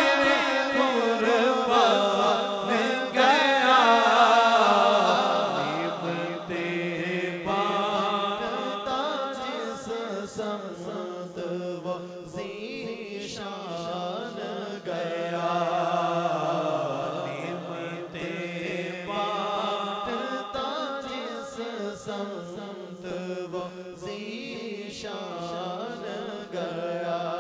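Male voices singing a devotional naat into microphones: a lead voice draws out long, wavering melodic lines while a second voice holds a low steady note beneath.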